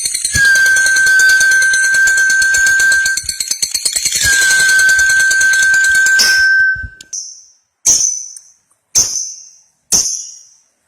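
Lovebird ngekek: a long, rapid chattering trill held for about three seconds, a brief break, and a second bout of nearly three seconds. Then four short, sharp chirps about a second apart.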